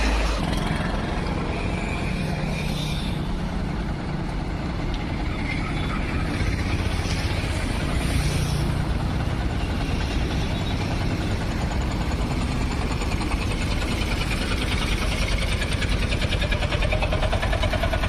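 Motor-vehicle engine running steadily, with road noise.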